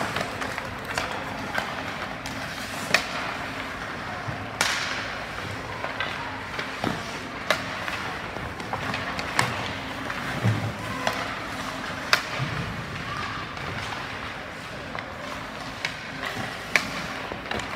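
Irregular sharp knocks and thuds, a few seconds apart, over a steady background din of noise.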